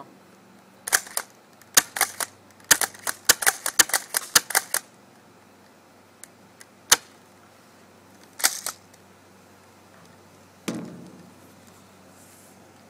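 Sharp mechanical clicks and clacks from a spring-powered airsoft pump shotgun fitted with an M14 piston being worked. A fast run of clicks comes between about three and five seconds in, then a few single clacks, and a duller knock near the end.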